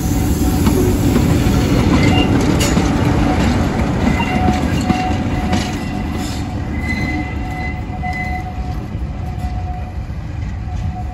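Train of Mark 3 coaches rolling past close by: a steady rumble of wheels on track with clicks over rail joints and thin, on-and-off wheel squeal on the curve. The Class 47 diesel locomotive at the rear passes about halfway through, and the sound then eases as the train draws away.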